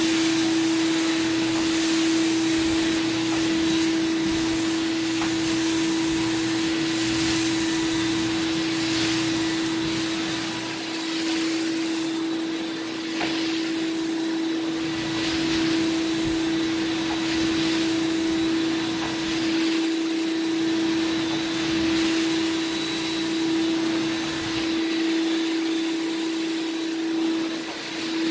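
Carpet-cleaning wand of a truck-mounted hot-water extraction machine, sucking air and water out of the carpet as it is pulled across it in repeated strokes. A steady whine runs under a rushing hiss that swells with each stroke.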